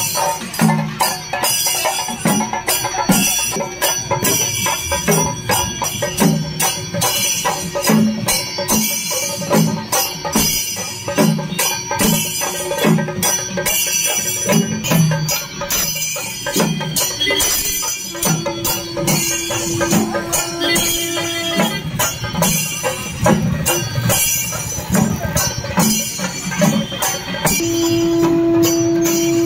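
Procession barrel drums beaten with sticks in a steady, driving rhythm. A conch shell is blown in a long steady note about two-thirds of the way in, and again, louder, near the end.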